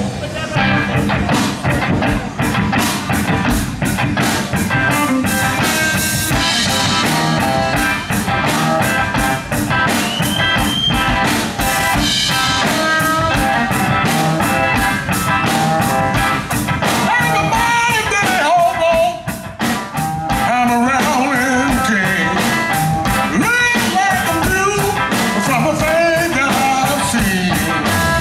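Live blues band playing, with a steady drum beat under electric guitar and bass; in the second half a lead line bends up and down in pitch.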